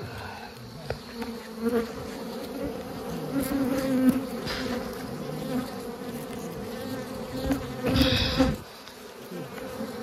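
A swarm of disturbed wild honeybees buzzing steadily around their raided nest. There are short bursts of louder noise over the hum, the biggest about eight seconds in.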